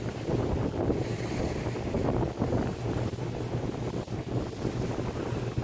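Speedboat under way: its engine running with a steady low hum, water rushing along the hull and wind buffeting the microphone.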